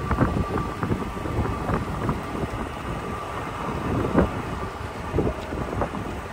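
Toyota Tacoma pickup rolling slowly over a rocky dirt track: its tyres crunch on gravel, with many small clicks and knocks of stones and a steady low rumble. Wind buffets the outside-mounted microphone.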